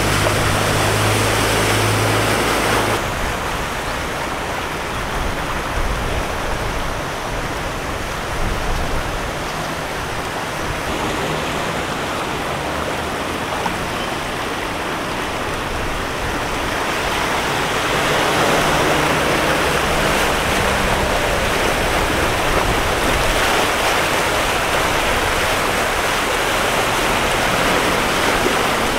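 Vehicles driving through deep standing water on a flooded road: a steady rush of tyres ploughing and splashing through the water, with an engine hum near the start.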